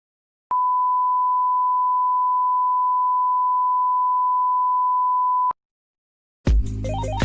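A single steady electronic beep, one pure unchanging tone held for about five seconds and cut off sharply. About a second later, music begins near the end.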